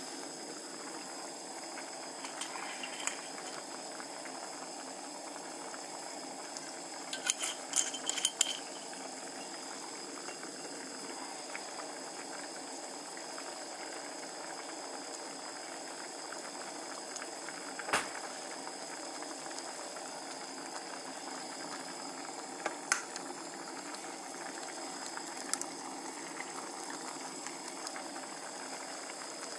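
Rice and broth simmering in a small hammered aluminium saucepan, a steady bubbling, with a few light clicks and taps scattered through it, the sharpest about eighteen seconds in.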